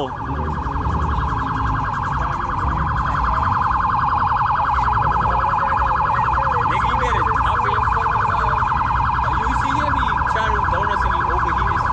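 Police car siren sounding steadily in a very fast warble, over a low background rumble.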